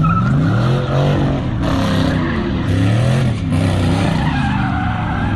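A car doing donuts, its engine revving up and down several times while its tyres screech and skid continuously.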